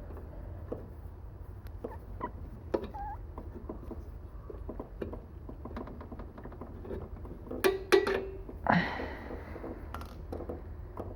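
Small scattered clicks and taps of hands working on metal mower parts, with a few sharp metallic clicks about eight seconds in followed by a brief scrape.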